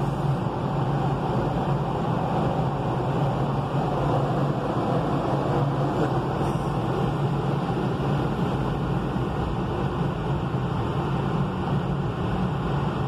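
An automatic car wash machine running over the car, heard from inside the cabin: a steady rushing noise with a low hum underneath.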